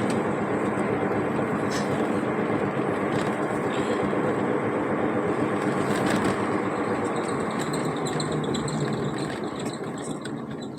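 Car driving along a road: steady engine and tyre noise that fades a little near the end.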